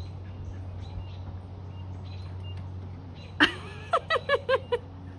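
A dog giving one sharp excited yelp about three and a half seconds in, then a quick run of five or six short high whining yips, over a steady low hum.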